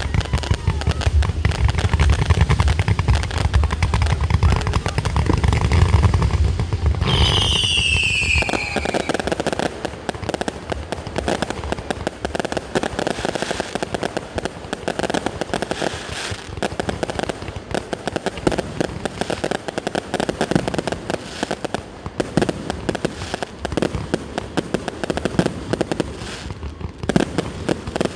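Fireworks display going off in a continuous barrage of bangs and crackles. Heavy low booms dominate for the first eight seconds or so, with a falling whistle about seven seconds in, then dense crackling.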